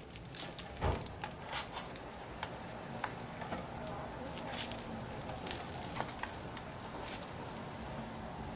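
Light, scattered clicks and taps of small laptop parts and tools being handled and fitted inside a MacBook Air, over a faint steady hum.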